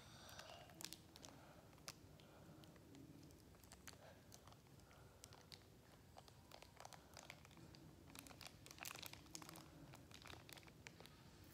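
Faint crinkling and tearing of a plastic blind-bag wrapper being opened by hand, in irregular sharp crackles that come thickest about eight to nine seconds in.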